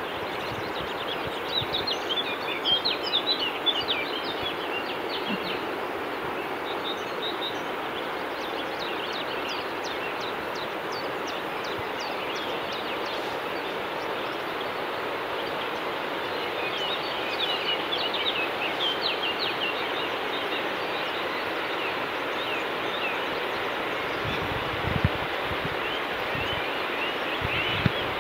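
Steady rushing of a mountain torrent in strong flow, heard from a distance, with songbirds chirping over it at intervals. A few dull knocks near the end.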